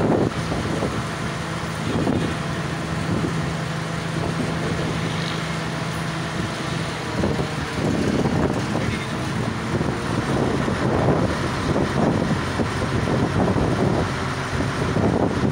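Truck-mounted crane's diesel engine running as it hoists a heavy load. A steady low hum holds for about the first seven seconds, then gives way to rougher, uneven engine noise.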